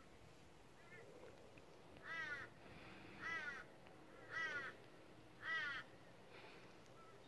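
A crow cawing four times, evenly about a second apart, each caw short and harsh.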